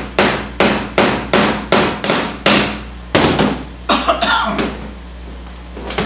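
A hammer drives a tack through linen into a wooden stretcher bar in a quick, even run of about eight strikes, roughly two and a half a second, that stops a little over three seconds in. A brief noisy sound follows about four seconds in, and a single tap comes right at the end.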